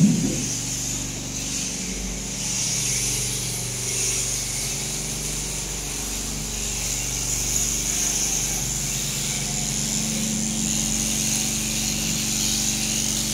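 Powered sheep-shearing handpieces running steadily: a motor hum under the high buzzing hiss of the comb and cutter working through fleece.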